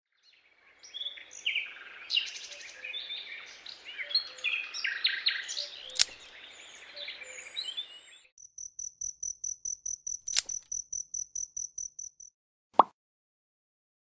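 Birds chirping and calling over a faint outdoor hiss for about eight seconds, then a high cricket chirp pulsing about five or six times a second for about four seconds. A few sharp clicks fall in between, the loudest near the end.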